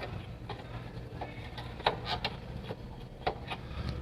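Scattered light clicks and taps of hand tools on metal, coming at irregular moments over a low steady hum.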